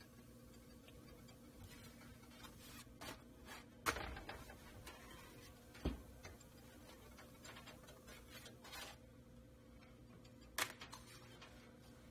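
Quiet handling sounds as a flour tortilla is shifted on a dry cast-iron griddle and then lifted off: a few light scrapes and three sharp knocks, about four, six and ten and a half seconds in, over a low steady hum.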